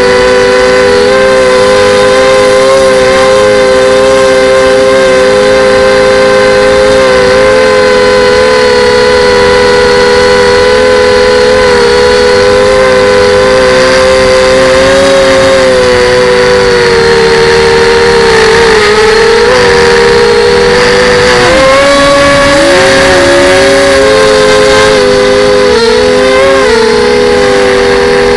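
FPV quadcopter drone's motors whining steadily at two close pitches while it holds a hover. In the last several seconds the pitch dips and climbs in quick swings as the throttle changes.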